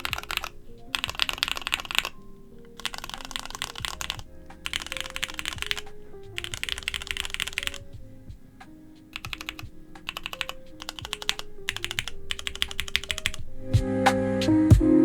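Mechanical keyboard with Cherry MX2A Orange tactile switches being typed on in quick runs of keystrokes, each run a second or so long with short pauses between, giving the switches' clacky Cherry sound. Background music plays underneath and swells near the end.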